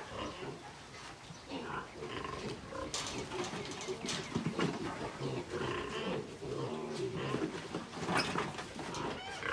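Pigs and piglets grunting continually, with a few short, shrill squeals about three, four and eight seconds in.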